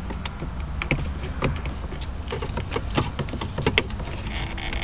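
Irregular light clicks and taps of hands working on plastic centre-console trim and its clips around the gear shifter.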